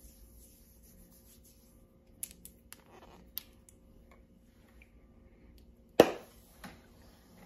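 Faint clicks and taps of small perfume and dropper bottles being handled, with one sharp knock about six seconds in and a smaller tap just after.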